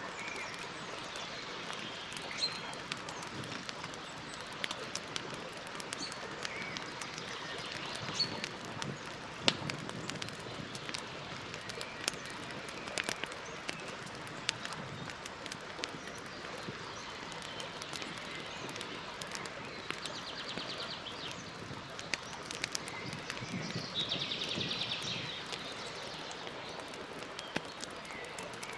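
Campfire crackling, with a steady hiss and scattered sharp pops, the loudest about nine seconds in. Birds chirp now and then, and a buzzy trill comes twice in the last third.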